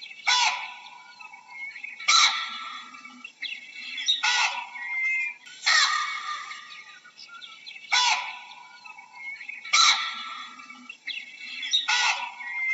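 Baboon giving short, harsh calls, repeated about every two seconds, seven in all, each starting sharply and tailing off.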